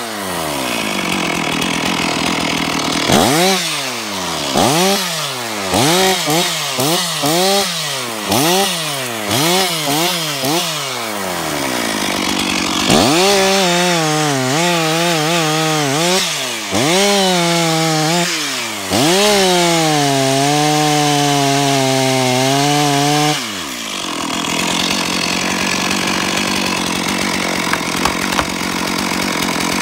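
Stihl 046 two-stroke chainsaw revved in quick bursts, each rising and falling about once a second, then held at high revs for several seconds with a few dips in pitch. It drops off about three-quarters of the way through.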